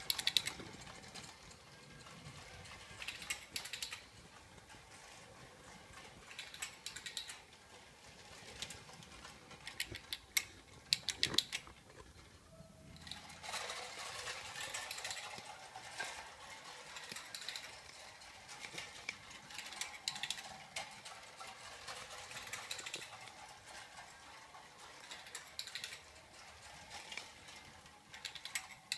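Clockwork motor of a prewar Lionel Donald Duck handcar running as it circles O gauge tinplate track: a steady faint mechanical whirr, with bursts of clicking and rasping every few seconds from its wheels and its clockwork-driven quacking mechanism.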